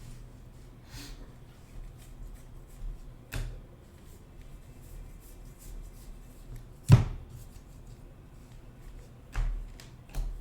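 Trading cards being handled by hand: faint rustling with a few sharp taps or knocks, the loudest about seven seconds in, over a low steady hum.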